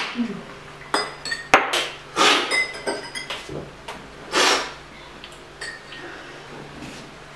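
Coffee-cupping slurps: coffee sucked loudly off cupping spoons in short hissing pulls, with metal spoons clinking against cups near the start.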